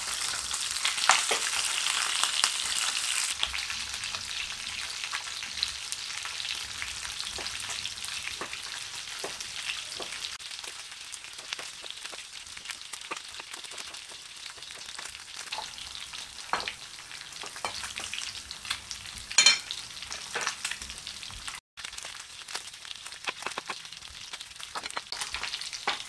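Pieces of fish sizzling as they fry in oil in a nonstick pan, loudest in the first few seconds, then a steadier, quieter sizzle. Scattered sharp knocks of a knife cutting on a wooden board run through it.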